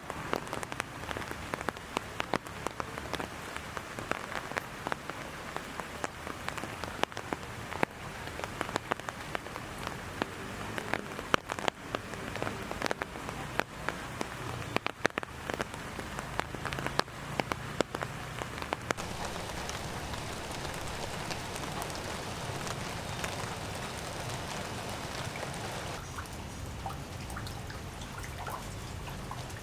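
Rain falling, with many sharp drop hits for about the first two-thirds, then a steadier even hiss of rain.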